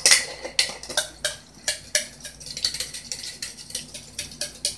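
Clear plastic pancake-batter container shaken hard by hand, its contents knocking against the walls in a quick, uneven run of clacks, about three a second. It sounds like the contents are being broken up.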